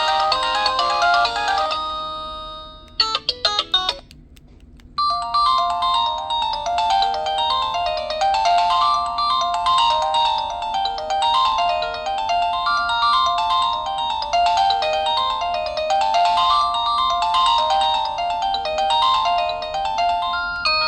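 Default ringtones from a Samsung SPH-A640 cell phone. One melody fades out just under two seconds in, a few short beeps follow, and about five seconds in a different repeating melody starts and keeps looping.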